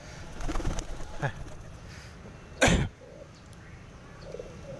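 Domestic pigeon flapping its wings as it is let go from the hand, then a single short, loud cough-like burst about two and a half seconds in.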